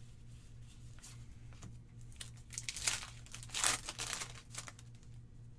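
Foil wrapper of a Pokémon TCG Guardians Rising booster pack being torn open and crinkled by hand. The crackling comes in a run of bursts over about two seconds in the second half.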